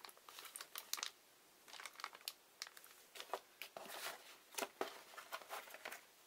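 Clear plastic kit bags crinkling and paper sheets rustling as they are handled, in scattered short crackles with a brief lull about a second in.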